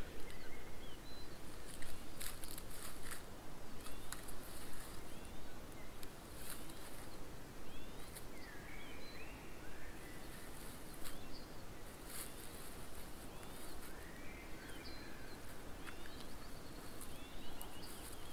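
A songbird singing short phrases of sliding notes, repeated about every eight seconds, with a few faint crackles and rustles between them.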